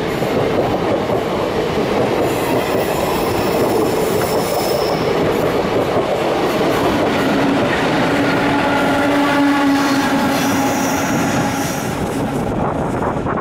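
Passenger coaches of an express train rolling past close by on a curve, a steady heavy rumble with wheel clatter over the rail joints. A thin high wheel squeal comes in a few seconds in, and a longer, lower pitched tone is held for several seconds in the second half.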